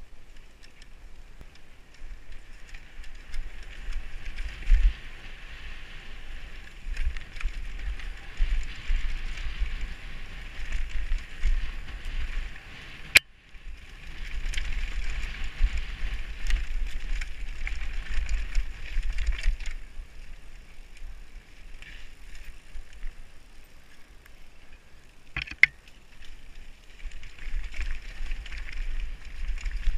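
Mountain bike ridden fast downhill on a dirt forest trail, heard from a camera worn by the rider: tyres rolling over dirt and roots and the bike rattling, over a low rumble of wind on the microphone. A sharp knock comes about 13 seconds in and another about 25 seconds in.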